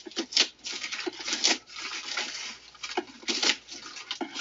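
Small knife slicing open a plastic poly mailer bag: a series of uneven scraping, tearing strokes as the blade cuts through the plastic, with the bag rustling under the hand.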